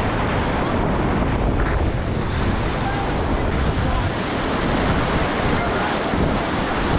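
Steady rush of whitewater rapids at high water, about 3000 cfs, heard from a raft running through them.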